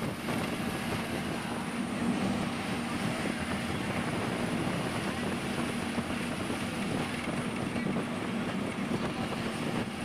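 KSRTC Sarige bus running at highway speed, heard from inside the cabin: a steady engine hum under continuous road noise.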